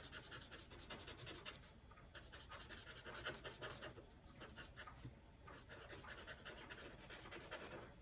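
Faint scratching of a felt-tip marker on paper, in short runs of quick back-and-forth strokes as small shapes are coloured in.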